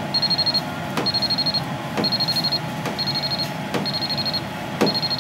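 T Hotbox PDR induction dent-repair unit beeping in a repeating pattern, a high beep about half a second long roughly once a second, while it runs a heating cycle on the panel. A few short clicks come between the beeps.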